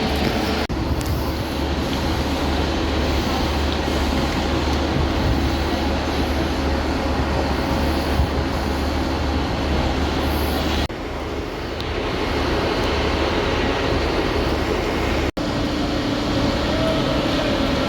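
A train running: a steady rumble and rush with a low hum. The sound changes abruptly twice and drops out for an instant about fifteen seconds in.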